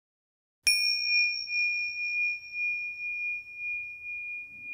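A single bell-like chime struck once about two-thirds of a second in, after a moment of silence. It rings on as one clear high tone with a slow, pulsing decay.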